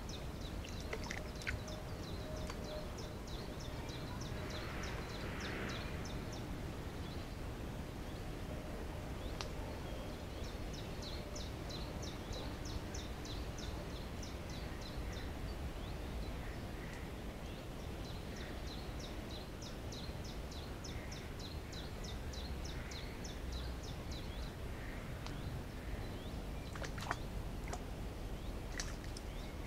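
Outdoor ambience with a steady low rumble, over which a small songbird sings three long runs of rapid, evenly repeated high notes, each run lasting several seconds. Soft splashing from a common buzzard bathing in the shallow pool, with a couple of sharper splashes near the end.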